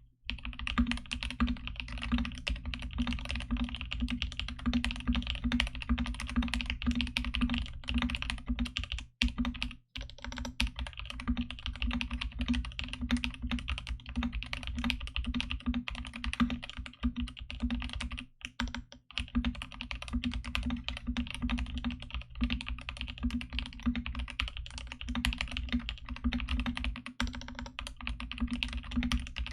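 Fast, continuous typing on a Chiwi60 mechanical keyboard with a brass plate and lubed, filmed NovelKeys Cream switches. Rapid keystroke clacks, with two short pauses, the first about a third of the way in and the second near the middle.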